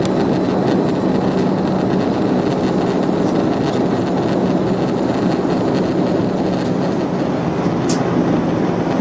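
Airbus A340 cabin noise while taxiing after landing: a steady rumble of the airliner rolling on the ground, with a low hum from the engines at idle and a click near the end.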